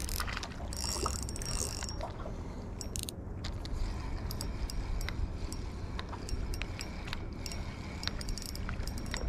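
Spinning fishing reel being handled and cranked, giving irregular mechanical clicks and ticks over a steady low rumble.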